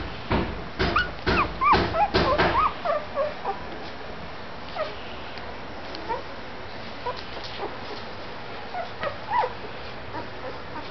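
Labrador puppies about two weeks old squeaking and whimpering in short high calls. During the first three seconds loud rustling knocks come with a quick run of squeaks; after that there are only scattered faint squeaks.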